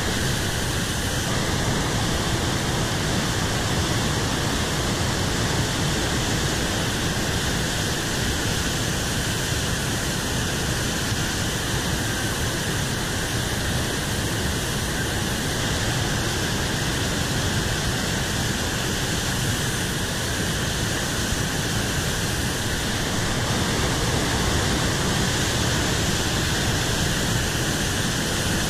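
Whitewater rapids of the Potomac River at Great Falls, a steady, unbroken rushing of water churning over the rocks.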